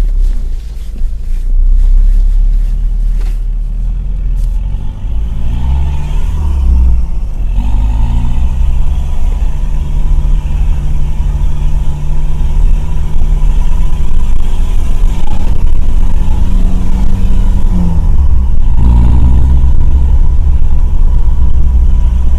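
Off-road vehicle's engine running under load over a heavy low rumble, its revs rising and falling a few times and holding steady in between.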